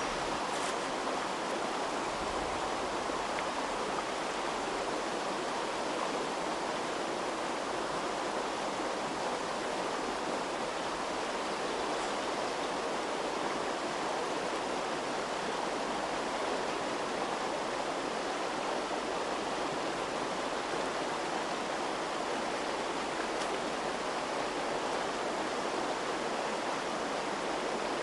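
River water running over rocks in a shallow riffle: a steady rushing and burbling.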